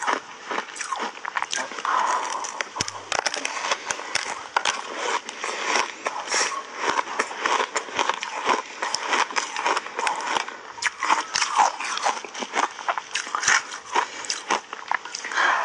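Ice coated in matcha and milk powder being bitten and chewed: a dense, continuous run of crisp crunches and crackles as the frozen block breaks up in the mouth.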